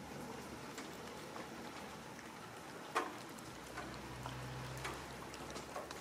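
Cats eating wet food from plastic tubs: small wet chewing and lapping clicks, with one sharper click about halfway through.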